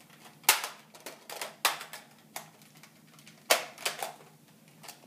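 Sharp plastic clicks and knocks from a toy Nerf blaster and its attachments being handled, several separate clicks with the loudest about half a second in and about three and a half seconds in.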